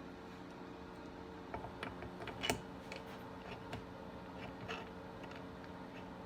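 Faint, scattered clicks and ticks of a hand tap being turned with a tap wrench in a bar stud hole of a Stihl 026 chainsaw's magnesium crankcase, cutting new threads. One sharper click comes about two and a half seconds in, over a steady low hum.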